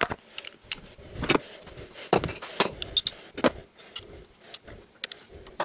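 Steel hand tools clinking and knocking as a socket and breaker bars are handled and swapped for a longer bar: a series of sharp metallic clinks, some ringing briefly.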